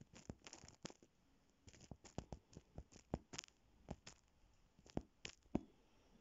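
A cat nosing and sniffing right at the phone, its face against the microphone: a string of irregular short clicks and scratchy rustles, about a dozen, stopping about five and a half seconds in.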